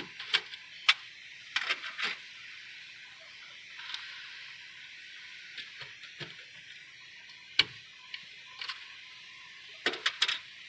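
Sharp plastic clicks and scrapes of B&R X20 I/O modules being worked loose from their DIN-rail bus base, over a steady hiss. The clicks come in a cluster in the first two seconds, once about two thirds through, and in a quick run of four or five near the end.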